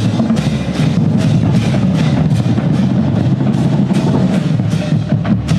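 Percussion ensemble warming up together: marching snare, tenor and bass drums playing a steady accented pattern, about two and a half accents a second.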